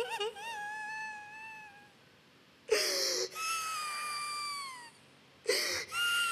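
A woman sobbing and wailing: three long, high crying wails that each fall in pitch at the end, with a sharp gasping breath before the second and third.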